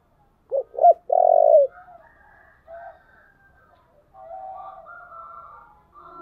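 Spotted dove cooing: two short low coos followed at once by a longer, louder coo that falls in pitch at its end, with fainter bird calls after it.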